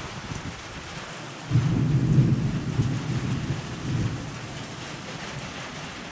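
Thunder: a sudden loud clap about a second and a half in, then a deep rumble for about three seconds that fades away, over steady rain.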